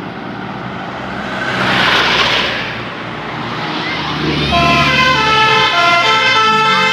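Road vehicle noise that swells and fades about two seconds in, then from about four seconds in a bus's 'telolet basuri' multi-tone musical horn plays a tune of stepped, held notes.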